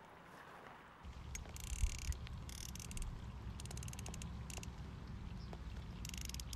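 Wind buffeting the microphone as a steady low rumble, starting about a second in. Several short bursts of rapid, high-pitched clicking come over it.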